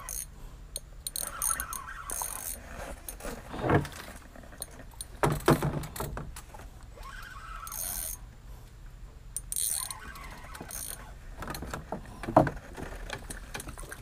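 Spinning fishing reel being cranked in short bursts while a hooked giant river prawn is reeled in, with scattered knocks and rattles of tackle in the boat; the loudest knocks come about four, five and twelve seconds in.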